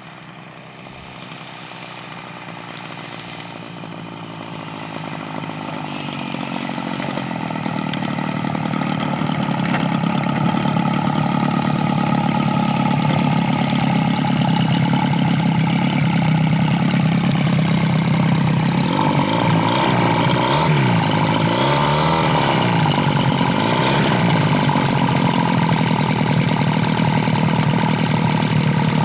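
Engine and propeller of a large radio-controlled An-2 biplane model, growing louder over about ten seconds as it comes in and lands. It then runs at low throttle while taxiing close by, with several rises and falls in pitch about two-thirds of the way through.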